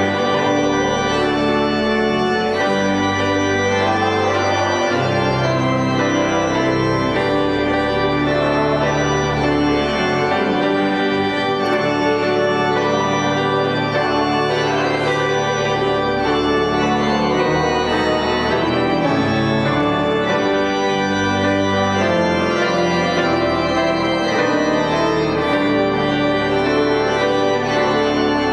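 Church organ playing held chords over a slowly moving bass line.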